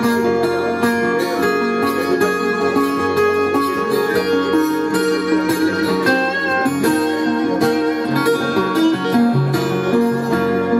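Acoustic lap steel guitar played solo: a continuous run of plucked notes over held low notes, with a few notes wavering in pitch under the slide about halfway through.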